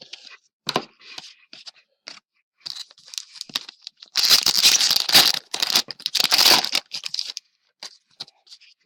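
A trading-card pack wrapper being handled and torn open: light rustling and crinkling at first, then loud tearing and crinkling from about four seconds in, lasting some three seconds.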